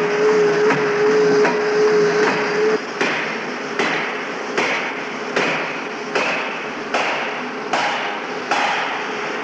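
Industrial power hammer striking a red-hot forging billet in a steady rhythm, about one blow every 0.8 s. The blows become much louder about three seconds in, and a steady tone runs under the first few blows.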